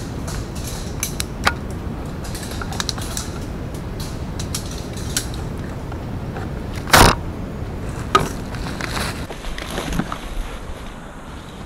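Rustling and crackling of dry leaves and brush as someone in a ghillie suit moves low through forest undergrowth. There are many small snaps, and one sharp knock about seven seconds in.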